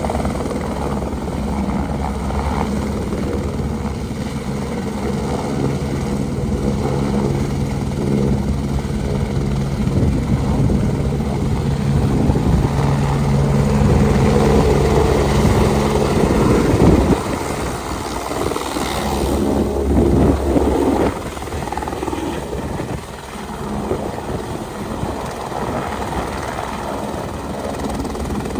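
Helicopter rotor and turbine running with a steady low drone that grows louder over the first seventeen seconds or so. Then the steady tone breaks off into a rougher, noisier sound that fades down a few seconds later.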